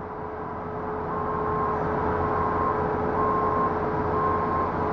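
Heavy construction machine compacting fill, its engine running steadily. From about a second in, a reversing alarm beeps about once a second.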